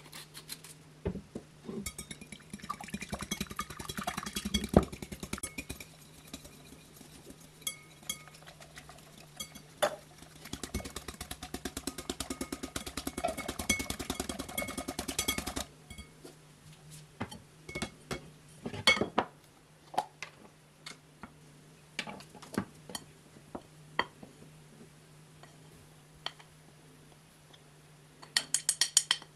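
Wire whisk beating eggs and vanilla in a cut-glass bowl: rapid clinking strokes against the glass that stop about halfway. After that come scattered separate clinks and taps, and a quick run of taps near the end as flour goes into a sieve over the bowl.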